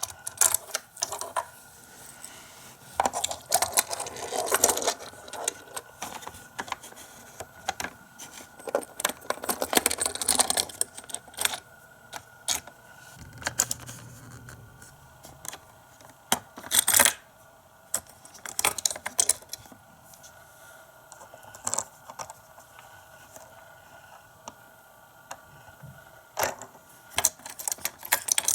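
Small plastic toy parts of a Micro Machines playset clicking and clattering as they are worked by hand. The clicks and rattles come irregularly, some in clusters, with one loud clack a little past the middle.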